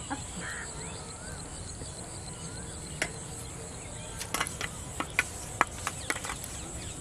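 Steady high-pitched insect chorus, typical of crickets in a rice paddy. About three seconds in comes a sharp click, then a quick run of clicks and taps through the second half.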